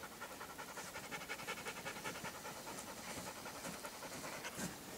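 Rapid, even panting, about five breaths a second.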